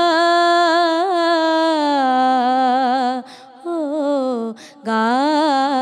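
A woman singing an Urdu naat solo, drawing out long ornamented vowels with a wavering pitch, breaking off twice briefly in the second half to breathe.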